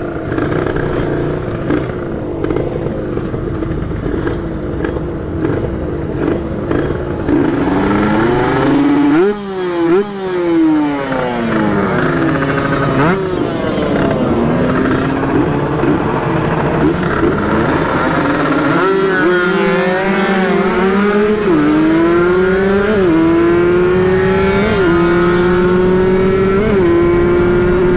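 Kawasaki Ninja 150 RR two-stroke motorcycle engines revving, with more than one bike audible, their pitches rising and falling across each other. Later one bike accelerates hard through the gears: a climbing engine note that drops back at each upshift, four or five times.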